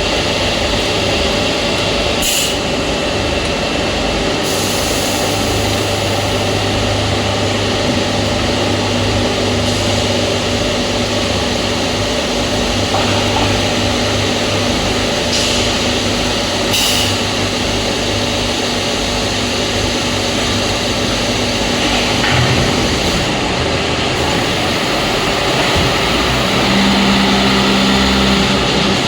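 Hydraulic press machine running with a steady mechanical hum. A deeper hum comes in about five seconds in and stops about twenty-two seconds in, another tone sounds briefly near the end, and there are a few short hisses.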